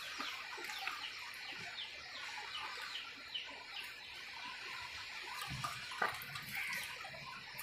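Birds chirping in a quick series of short, falling chirps that thin out after about four seconds, with a sharp click about six seconds in.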